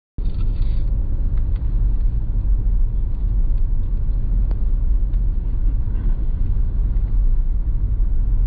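Steady low rumble of a car's engine and road noise heard from inside the cabin while driving, cutting in abruptly just after the start.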